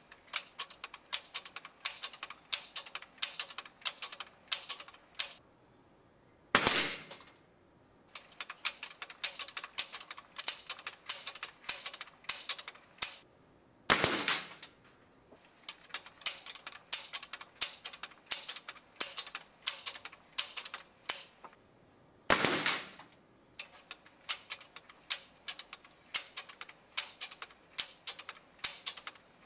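Seneca Dragonfly Mk2 multi-pump pneumatic air rifle being pumped and fired: runs of quick clacks from the pump lever, broken by three sharp shots about seven and a half seconds apart.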